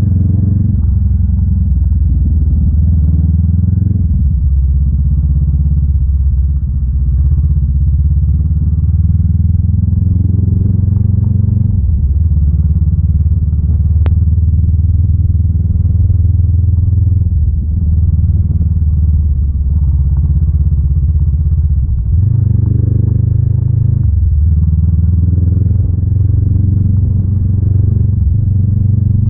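Honda Rebel 500's parallel-twin engine running steadily while under way on a gravel road. Its note shifts a few times, about twelve, seventeen and twenty-two seconds in.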